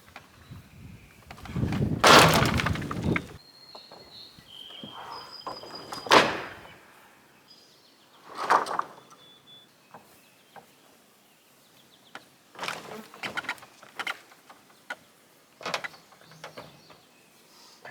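Wood knocking and clattering as slab offcuts are handled, in irregular bursts: a long, loud clatter about two seconds in, single knocks a few seconds apart after it, and a run of knocks toward the end.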